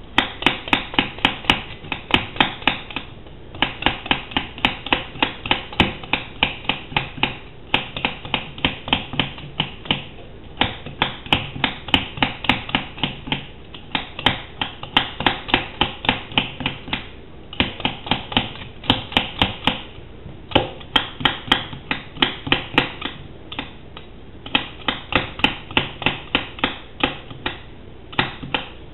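A raw potato being peeled by hand: quick scraping strokes, about four a second, in runs of a few seconds with short pauses as the potato is turned.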